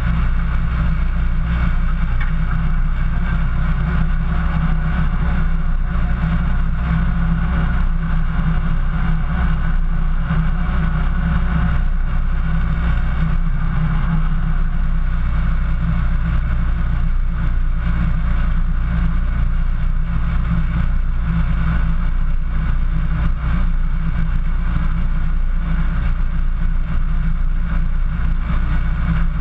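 Jeep's engine running at a steady, even pitch as it drives along a snowy trail, heard from a camera mounted on its hood.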